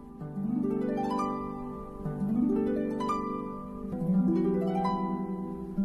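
Background music: plucked strings playing rising arpeggios, three runs about two seconds apart.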